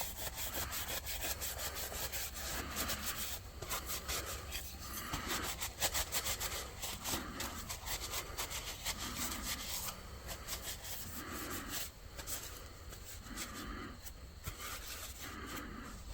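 Steel blades of old hand shears being rubbed by hand to take off rust, a scratchy abrasive sound in repeated back-and-forth strokes.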